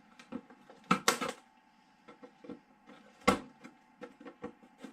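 Scattered sharp knocks and clicks as the RC truck and its packaging are handled. The loudest come about a second in and just over three seconds in, with small taps between.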